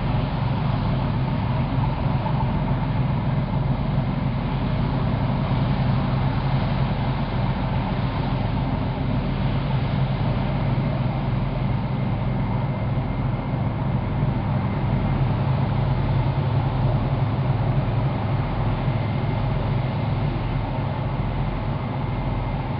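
Arie Visser-class lifeboat's twin diesel engines running steadily as the boat manoeuvres, with the water churned up by its waterjets. A continuous low drone with no pauses.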